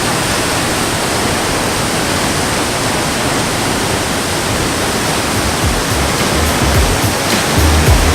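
Waterfall pouring close by, a loud steady rush of water. A music track's low beat fades in over the last couple of seconds.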